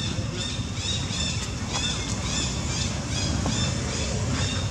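A rapid series of short, high-pitched squeaky calls, about three a second, over a steady low rumble.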